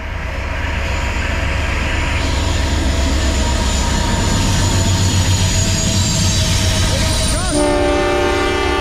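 Two Norfolk Southern diesel locomotives at the head of a double-stack intermodal train run past close by at speed, with a heavy low engine rumble and rail and wheel noise that swells to a peak midway. About seven and a half seconds in, a locomotive horn sounds and holds one steady chord.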